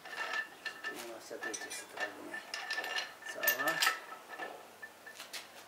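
Repeated metallic clinks, knocks and scrapes as steel parts are handled against the cast-iron block of a D115 tractor engine.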